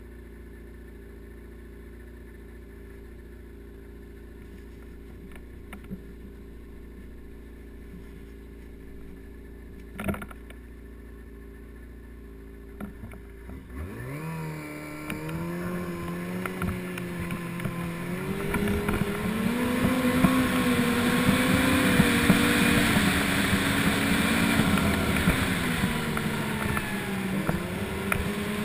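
Yamaha snowmobile engine idling steadily, then, about fourteen seconds in, revving up and pulling away. Its pitch rises and wavers with the throttle and it grows much louder, with a rushing noise building as it gathers speed.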